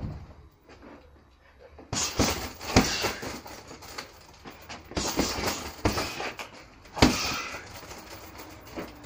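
Boxing gloves striking a hanging heavy punching bag in quick flurries of sharp hits, with the loudest single blows about three seconds in and about seven seconds in.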